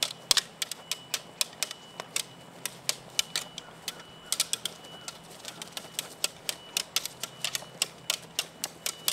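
Swords clashing blade on blade in a rapid exchange: sharp clacks at an irregular pace of several a second, without pause.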